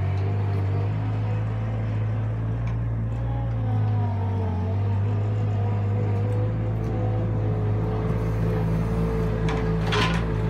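Avant compact loader's engine running steadily, with a couple of sharp knocks near the end as its grapple meets a log.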